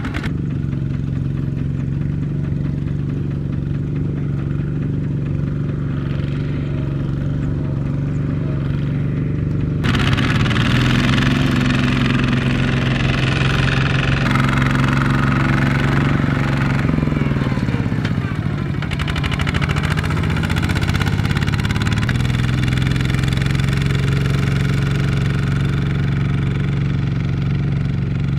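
Kubota walking tractor's single-cylinder diesel engine running steadily while pulling a trailer loaded with rice bags. Partway through, the engine speed drops and picks up again.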